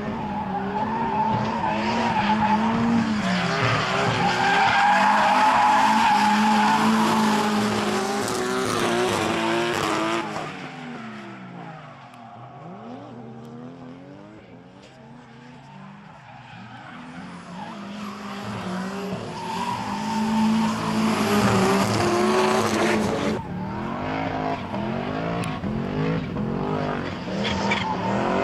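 Drift cars sliding sideways through a corner, their engines held at high revs with the pitch bouncing up and down as the throttle is worked, and tyres squealing and skidding. The sound fades for a few seconds in the middle, then builds again, changing abruptly near the end.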